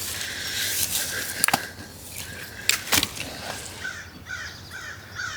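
Bird calls in short repeated harsh notes, clearest in a quick run near the end, with two sharp clicks about one and a half and three seconds in.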